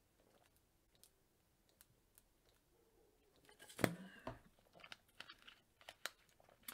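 Near silence for the first few seconds, then a sharper click a little before the four-second mark followed by a scatter of faint small clicks.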